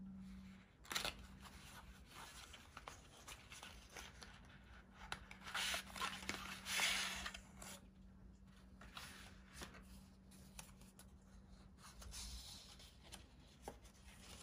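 Printed card and paper being handled and slid over a cutting mat: a sharp tap about a second in, then rustling and scraping in short, uneven bursts.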